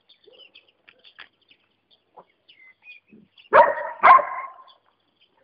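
A puppy barks twice in quick succession, about half a second apart, partway through. Faint high bird chirps are heard in the background.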